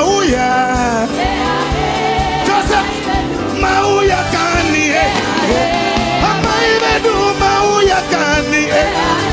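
A live gospel band playing, with singing over a steady beat.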